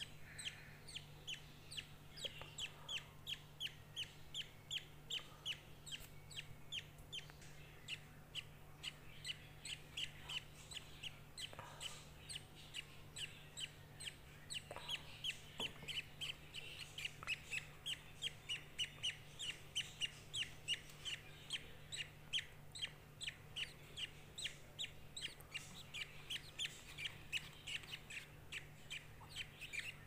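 Budgerigar chicks begging for food: a rapid, even series of short high cheeps, about three a second, that goes on throughout. A faint steady low hum sits underneath.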